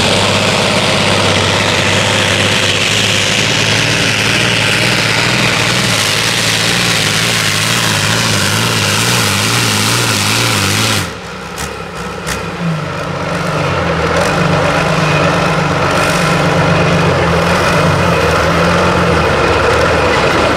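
Modified pulling tractor's engine running hard under load as it drags the weight sled. About eleven seconds in the sound changes abruptly to a tractor engine running more steadily and quieter, then building up in level again.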